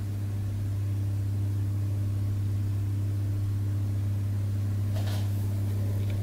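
Steady low hum with no change in pitch or level, and a faint short rustle about five seconds in.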